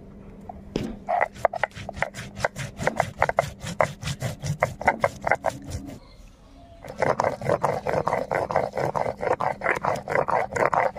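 Hand grinding of dried red chillies and cumin with a little water on a flat stone slab with a stone grinder (sil-nora). It makes fast rhythmic rasping strokes, about six a second. The strokes pause briefly about six seconds in, then come back denser and louder.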